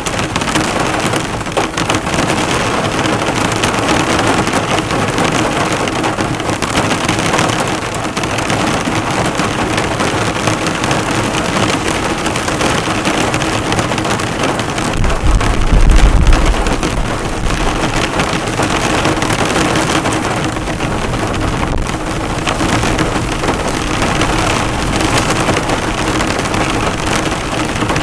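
Heavy rain pelting a car, the drops bouncing off the bonnet in a steady, dense patter. A low rumble swells about halfway through.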